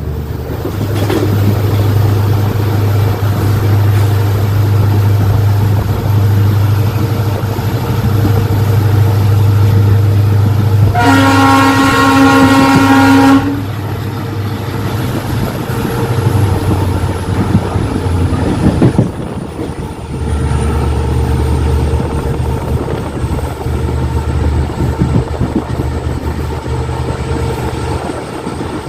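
WDP4D diesel locomotive's EMD 16-cylinder two-stroke engine running with a steady low hum, heard from the coach just behind it. About eleven seconds in, the locomotive's horn sounds once for about two and a half seconds. After the horn the hum weakens for a few seconds, then comes back strong.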